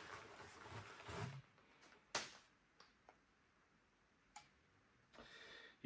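Mostly near silence. Faint rustling and a few light clicks come from crumpled newspaper being pulled out of a PVC pipe cache, with the sharpest click about two seconds in.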